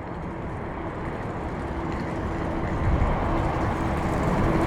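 Airliner jet engine noise, a rumbling roar with a faint steady hum, growing gradually louder.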